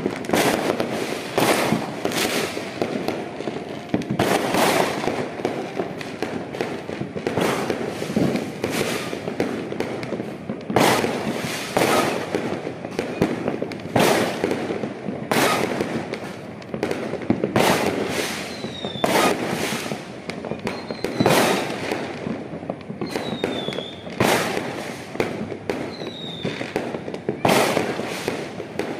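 New Year fireworks going off across a town: booms and bangs one after another, about one a second, over a continuous rumble of bursts echoing between them, with a few short high whistles in the second half.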